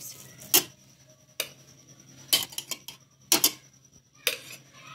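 Steel spoon clinking against a metal pot while boiled tomatoes are lifted out of the water: a series of sharp clinks, about one a second, some in quick pairs.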